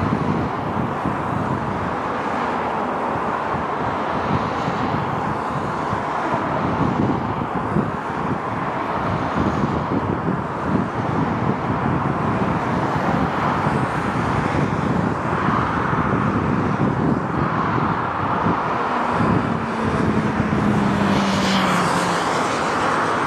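Boeing 737's jet engines at takeoff power during the takeoff roll, a steady roar that builds slightly as the jet comes on head-on, with a high whine rising near the end as it lifts off.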